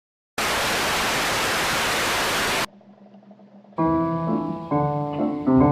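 A burst of loud, even static hiss that cuts off abruptly after about two seconds, then a faint low hum, and about a second later keyboard or piano music begins.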